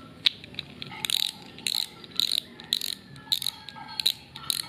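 Okuma Altera ultralight spinning reel's front drag knob being turned down on the freshly fitted spool, ratcheting clicks in short bursts about twice a second.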